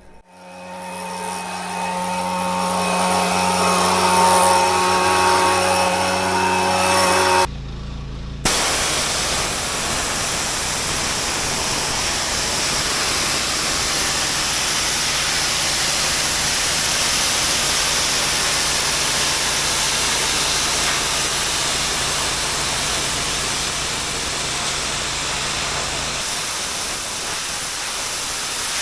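Pressure washer's engine running with a steady hum. After a break about eight seconds in, the dense hiss of the high-pressure water jet blasting patio paving takes over, with the machine's hum beneath it.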